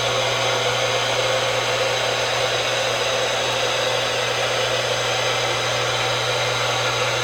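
A steady, loud rushing noise with a constant low hum under it, which starts and stops abruptly.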